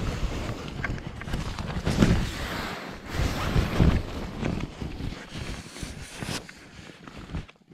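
Uneven rustling and shuffling of someone moving about in snow, with wind buffeting the microphone; the level drops briefly near the end.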